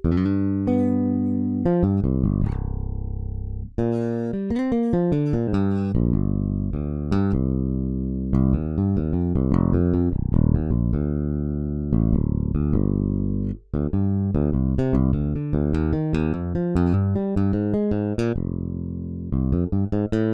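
Toontrack EZbass virtual electric bass playing gospel MIDI bass lines, plucked notes in a busy groove, with brief breaks about four seconds in and again about thirteen and a half seconds in.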